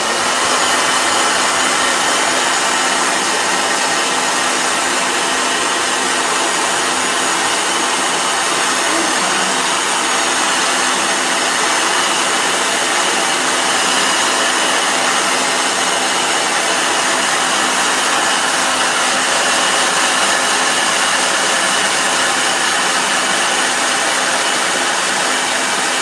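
Hair dryer blowing at full power: a loud, steady rush of air with a low motor hum, starting suddenly.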